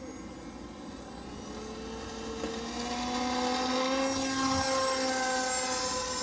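Electric motor and propeller of a small RC flying wing, a whine that grows louder to a peak about two-thirds of the way through and then eases off as the plane passes, its tones sliding in pitch as it goes by.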